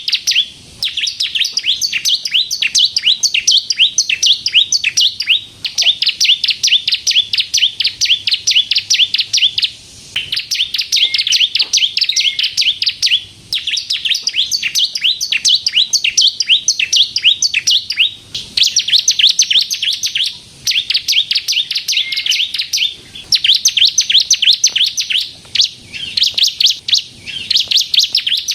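Bar-winged prinia (ciblek kristal) singing continuously: long runs of rapid, high-pitched ticking notes in phrases of a couple of seconds each, separated by brief pauses.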